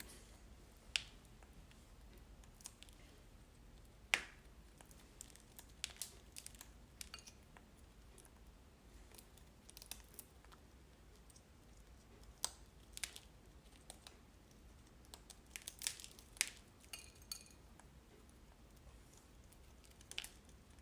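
African grey parrot biting into and crunching a Nutri-Berry seed ball, irregular sharp cracks and clicks with quiet gaps between them.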